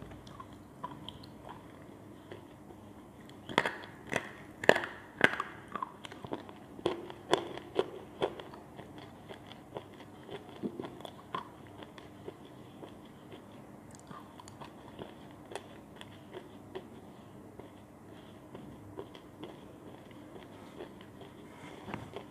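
Slate pencil being bitten and crunched between the teeth: a run of sharp, crisp crunches a few seconds in, then fainter, scattered chewing of the ground slate.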